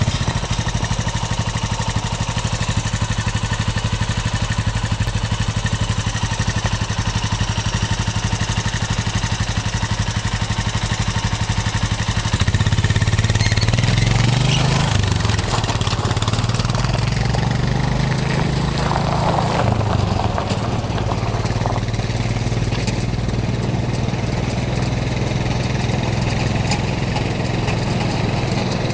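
ATV engine running steadily, then speeding up about 13 seconds in as the quad pulls away, and holding a steady higher run after that.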